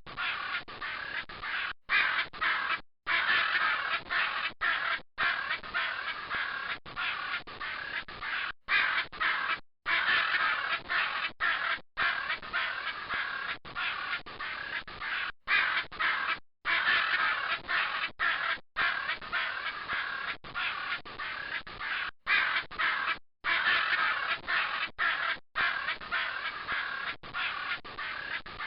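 Macaws squawking: harsh, raucous calls in a near-continuous stream, cut by brief moments of dead silence.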